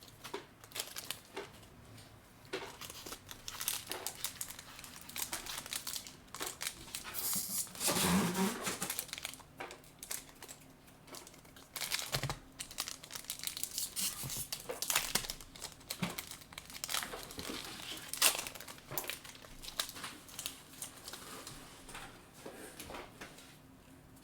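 Foil wrapper of a Pokémon Brilliant Stars booster pack crinkling and tearing as it is opened and the cards are pulled out, many short crackles with a louder stretch about eight seconds in.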